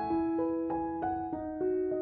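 Background music: gentle piano or electric piano notes, a new note struck every few tenths of a second and left to ring out.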